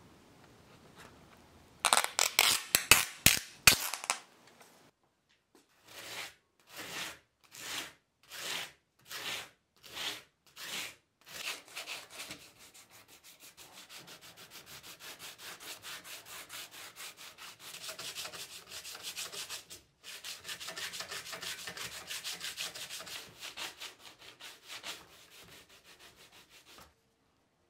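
Abrasive paper rubbed by hand along a rusty steel bayonet scabbard. There is a loud quick flurry of strokes about two seconds in, then slower separate strokes a little over half a second apart, then fast steady back-and-forth sanding with a brief pause midway.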